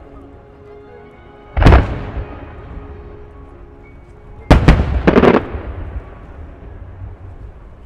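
Aerial firework shells bursting: one loud boom about one and a half seconds in, then another about four and a half seconds in followed by a quick run of further bangs, each fading out over about a second. Music plays underneath.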